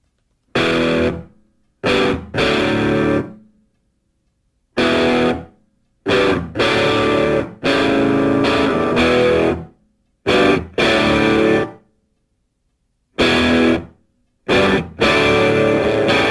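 Distorted electric guitar music: loud chords in bursts of a second or two, each cut off by a sudden silence, repeating stop-start.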